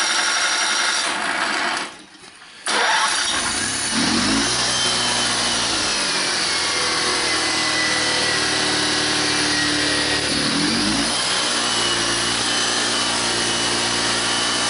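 Honda ES6500 generator's two-cylinder engine being key-started on its electric starter. The sound breaks off about two seconds in, starts again less than a second later and catches, and the engine settles into a steady run, its pitch shifting once about ten seconds in.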